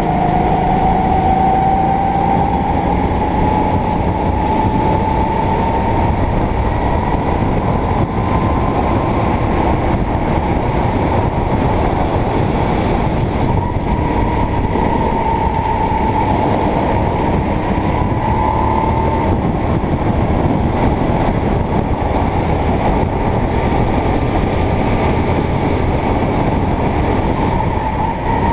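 Sodi kart's engine running at racing speed, heard from the driver's seat, its pitch climbing over the first several seconds and falling and rising again through later corners. A steady rushing noise lies under it throughout.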